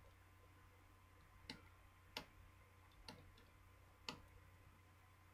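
Faint, sharp clicks, four in all about a second apart, from a small precision screwdriver working the tiny screws inside a smartphone's frame.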